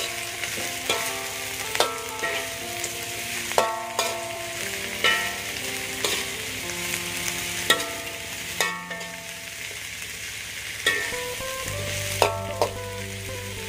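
Baby corn sizzling in hot oil in a metal wok, stir-fried with a metal spatula that scrapes and knocks against the pan every second or so.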